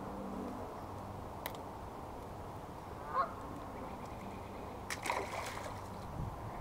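A goose honks once, briefly, about three seconds in. Around five seconds there is a short patch of rustling and clicks.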